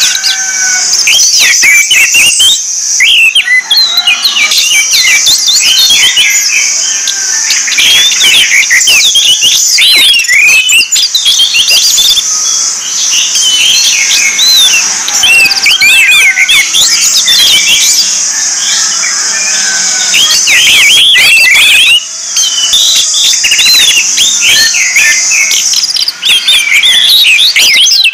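Orange-headed thrush song: a fast, unbroken stream of varied chirps and whistled notes, over a steady high-pitched buzz.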